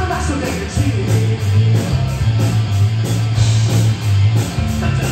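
Live rock band playing an instrumental passage: electric guitars, electric bass holding low notes and a drum kit keeping a steady beat.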